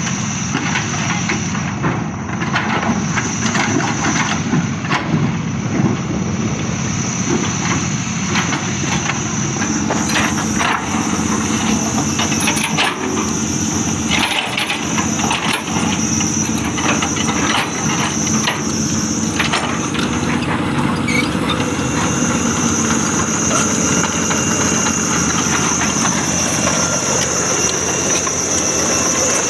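A Caterpillar 320D long-reach excavator's six-cylinder diesel engine runs steadily under load while it digs, with scattered knocks and clanks from the bucket working mud and stones. A steady high-pitched whine runs alongside.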